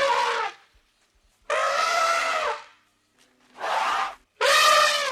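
An animal calling over and over, in separate pitched calls of up to about a second each, with short gaps between them.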